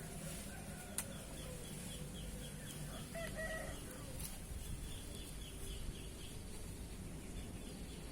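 A chicken calling briefly about three seconds in, over a steady run of high chirps repeating several times a second, with one sharp click about a second in.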